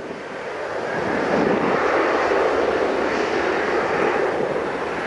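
Boeing 737-800's two CFM56-7B jet engines spooling up to takeoff thrust, heard from behind: a rushing jet noise that rises over the first second and a half, then holds steady.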